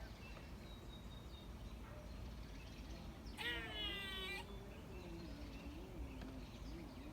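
A squirrel's cat-like mewing call, once, about three and a half seconds in, lasting about a second.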